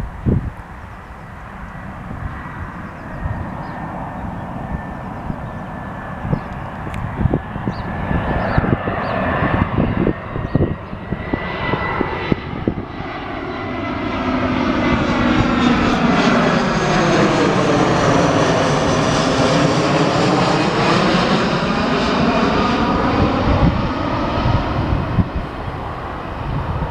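An easyJet jet airliner on final approach passing low overhead, its twin turbofan engines building from a distant whine to a loud rush about two-thirds through, with a sweeping, phasing change in tone as it passes, then easing off slightly. Wind gusts thump on the microphone in the first half.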